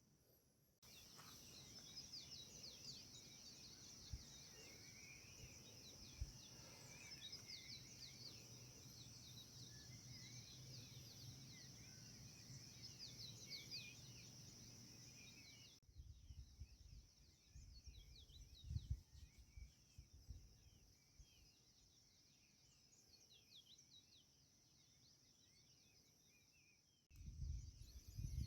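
Faint birds chirping over a steady high insect-like drone, in the open. After about halfway the chirps thin out and gusts of wind rumble on the microphone, with a louder gust near the end.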